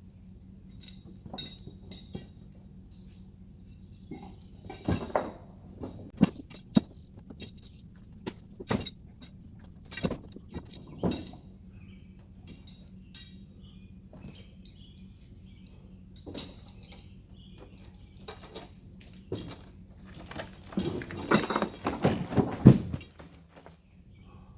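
Irregular metal clinks and knocks from handling sawmill gear, over a steady low hum, with a denser run of clattering near the end.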